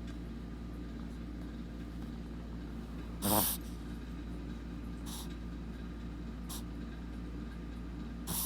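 Shih Tzu snorting through its nose: one loud snort about three seconds in, then three short, fainter ones spaced a second or more apart.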